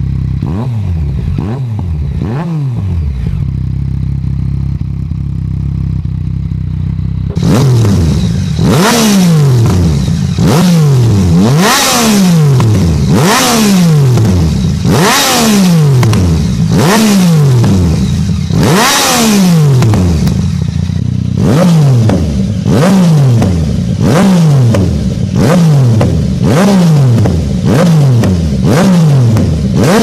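Yamaha MT-09's inline three-cylinder engine blipped repeatedly at standstill through an Akrapovic Racing Line titanium exhaust, each rev rising and falling quickly. A few small blips at first, then from about seven seconds in the revs come louder and sharper, about one every second and a half.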